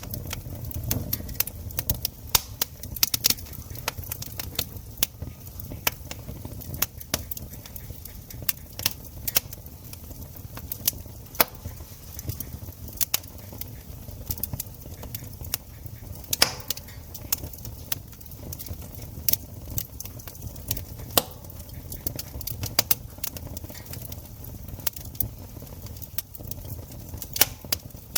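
Campfire burning, the wood crackling with many irregular sharp pops and snaps, some louder than others, over a low steady rumble.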